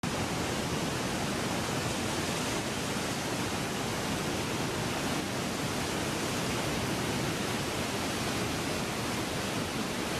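Steady rushing noise spread evenly from low to high pitches, with no rhythm or tone. It begins abruptly and then holds at one level.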